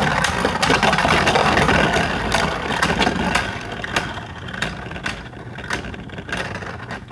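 Two Beyblade Burst spinning tops, one of them 3D-printed, whirring and clashing in a plastic stadium, with many sharp hits. The whirr dies down over the last few seconds as the tops lose spin.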